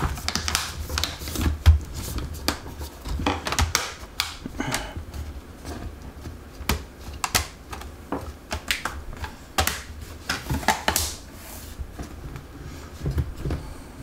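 Plastic keyboard trim bezel of a Dell Latitude E6540 laptop being pressed back into place by hand. A run of irregular clicks and snaps comes as its clips seat and the keys clack under the pressing fingers.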